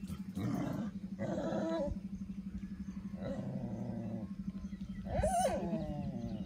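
Goats calling during kidding: four drawn-out bleats and groans, one of them low-pitched, the loudest and highest about five seconds in. A steady low pulsing hum runs underneath.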